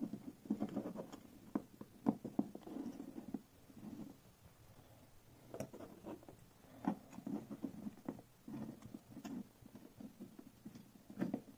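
Hands handling small plastic and metal electronics parts: a metal-cased sensor module is set into a plastic enclosure base and its cables are moved. The handling gives soft irregular rustles and knocks with scattered sharp clicks, and there is a lull in the middle.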